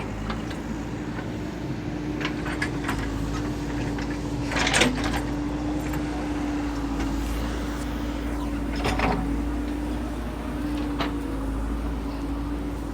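A steady mechanical hum holding one pitch over a low rumble, with a few short knocks or clicks.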